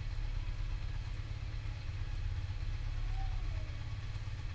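Engine idling: a low, steady rumble.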